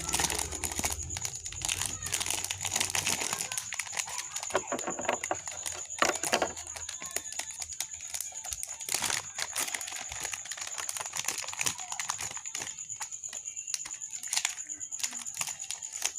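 Plastic packaging being handled and opened by hand, with irregular crinkling, crackling and small clicks and taps.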